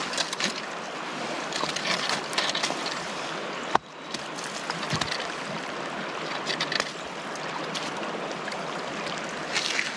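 Steady rush of a fast-flowing river at the shoreline, with a few brief louder swishes and one sharp click about four seconds in.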